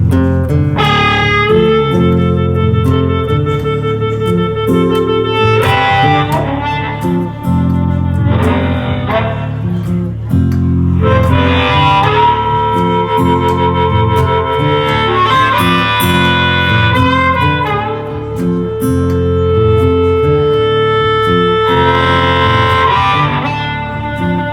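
Acoustic blues band playing an instrumental break with no singing: guitar and bass keep a steady rhythm under a lead instrument playing long held melody notes.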